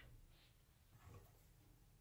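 Near silence: room tone, with one faint short tap about a second in.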